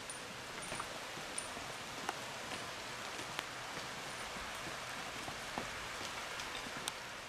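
Steady rain falling, with a handful of single drops ticking sharply close by at irregular moments.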